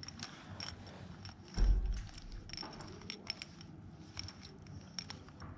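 Scattered light clicks and taps on a glass tabletop, with one heavy low thump about one and a half seconds in as the table is knocked.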